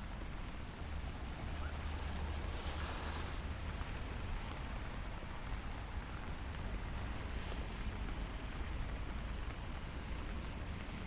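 Steady light rain falling on a city street, over a low rumble of traffic, with a brief swell of hiss about three seconds in.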